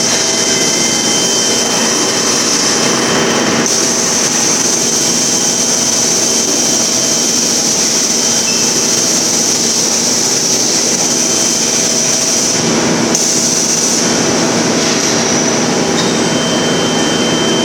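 Loud, steady noise of particleboard production-line machinery running, with a low hum and a high whine held through it.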